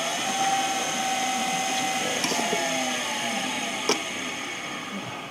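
A wood blank spinning on a lathe with a hand-held wheel-type texturing cutter pressed against it, giving a steady buzzing whine that eases off near the end. A single click comes about four seconds in.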